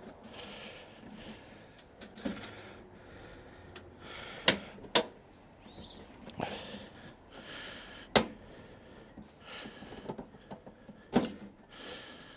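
Handling noises as the diesel heater's casing parts are fitted: light scraping and rattling, with a few sharp plastic-and-metal knocks and clicks. The loudest are two knocks half a second apart a third of the way in, another about two-thirds in, and one near the end.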